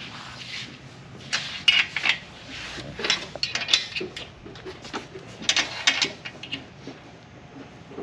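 Metal hardware and a wrench clinking and rattling in about three short clusters of sharp clicks, as the rear axle nut and washer are fitted and tightened on the trike's rear wheel.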